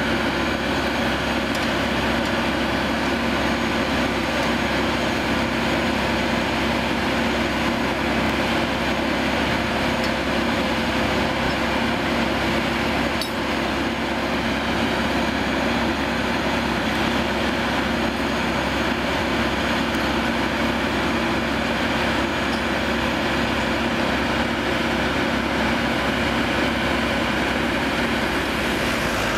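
Engine of a track-mounted rail welding machine running steadily: an unbroken mechanical hum with a few constant tones through it.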